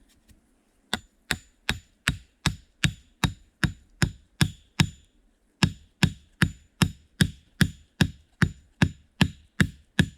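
Steady chopping blows of a tool on wood, about two and a half strikes a second, with a short break about five seconds in. Each blow has a faint metallic ring.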